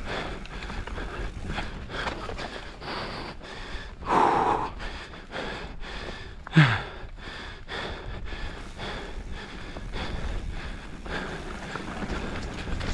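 Mountain bike ridden fast down a rough enduro trail: steady wind rush with the bike clattering over the ground, and the rider breathing hard. Two loud short sounds stand out, about four seconds in and about six and a half seconds in, the second falling sharply in pitch.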